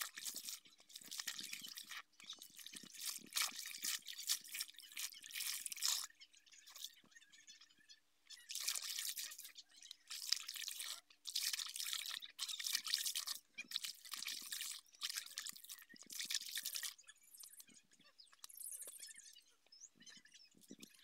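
Clothes being hand-washed in a basin of soapy water: wet scrubbing, sloshing and squelching in uneven bursts, with a short lull about six seconds in. It tails off over the last few seconds.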